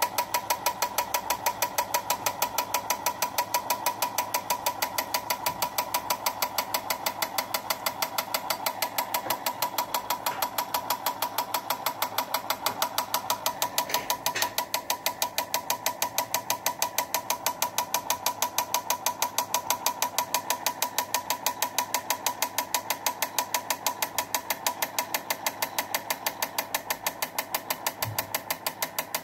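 Paper-chart recorder's drive mechanism running, ticking evenly at about four ticks a second over a steady whine.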